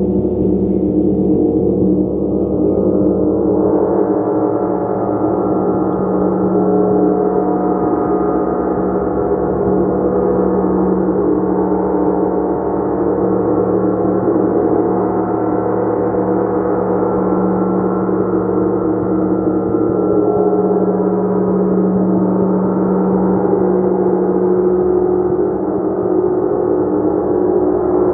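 Gong played continuously, sounding as a loud, sustained wash of many overlapping ringing tones over a steady low tone. About two to three seconds in, the higher overtones swell and fill in.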